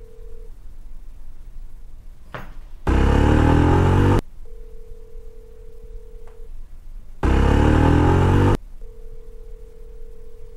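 Phone ringback tone heard through the handset: a steady mid-pitched tone held about two seconds at a time, three times, the line ringing at the other end and not yet answered. Between the tones, two loud stretches of a motorcycle engine running cut in sharply, each just over a second long.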